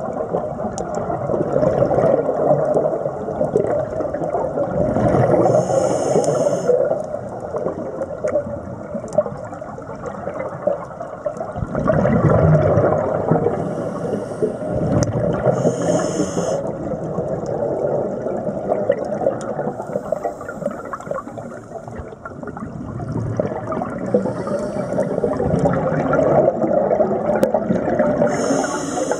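Scuba diver's regulator breathing underwater: drawn-in breaths as short hisses a few seconds apart, and long exhalations as bubbling, gurgling swells of exhaust bubbles.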